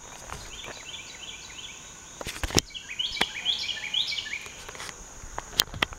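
Coyote calls: two bouts of short, high calls repeated in quick runs, which the recordist came to take for a coyote, over a steady high insect drone. A few sharp clicks fall in the middle and near the end.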